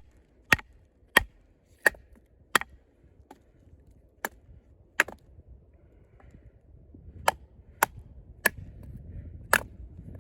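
A fixed-blade combat knife being batoned through a knotty piece of wood: about a dozen sharp knocks of the baton on the blade's spine, spaced roughly a second apart, with a pause of a couple of seconds midway.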